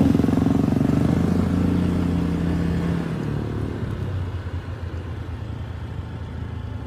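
Homemade go-kart's engine running, loud at first and fading after about three seconds as the kart pulls away ahead; a steadier, lower engine hum from a following motor scooter carries on underneath.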